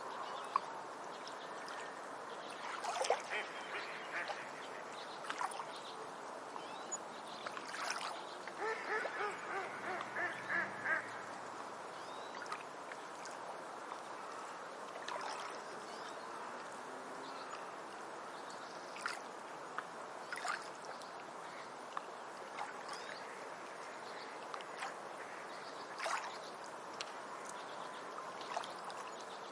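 Beach ambience: a steady wash of water with waterbirds calling now and then, including a quick run of repeated quacking calls about eight to eleven seconds in.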